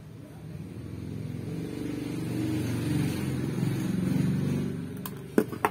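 A motor vehicle's engine passing by, swelling over a few seconds and then fading, with a couple of sharp clicks near the end.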